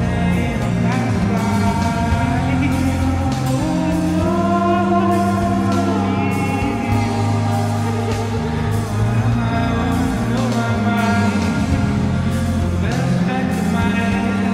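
A song playing: sung vocals over a held bass line and a steady drum beat.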